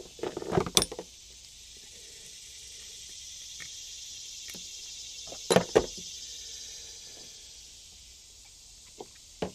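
Sharp metallic clicks and clatter of pliers and a small spring clip being worked onto the carburetor fuel line of a golf cart engine, in two short bursts about five seconds apart, over a steady high hiss.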